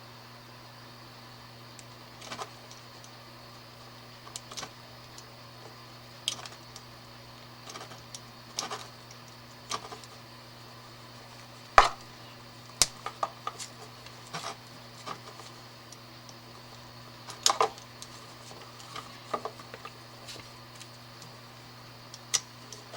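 Irregular small clicks and scrapes of hands cutting back the outer jacket of a power cord to expose the wires inside, the sharpest click about halfway through, over a steady low hum.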